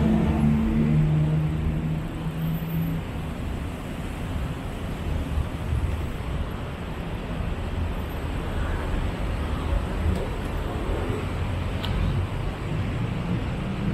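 Street traffic noise: a vehicle engine hums close by for about the first two seconds, then a steady background of passing traffic.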